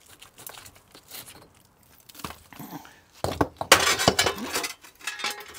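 Loose bricks being pulled by hand from a cracked garage wall: small scrapes and knocks of brick on brick, then a burst of clattering and scraping a little past halfway as bricks and rubble come away.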